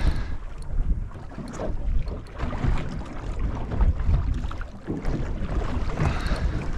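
Wind buffeting the microphone in gusts over the wash of water around a small boat at sea, with scattered light knocks.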